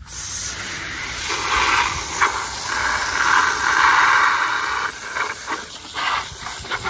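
Garden hose spray nozzle spraying water into a bucket of hay cubes: a steady hiss of spraying water with a few faint knocks.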